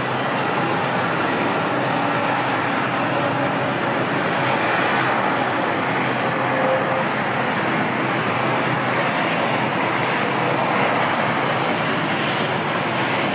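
Jet airliner engines on a landing: a steady, even rushing noise as the twin-engine jet comes in and touches down.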